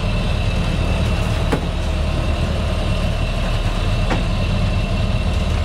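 A sailing yacht's inboard engine running steadily under way, a constant low drone with two faint clicks about a second and a half and four seconds in.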